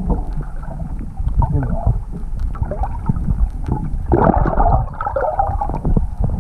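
Water gurgling and swirling around a camera held underwater, heard muffled with a low rumble. A louder bubbling swirl comes about four seconds in.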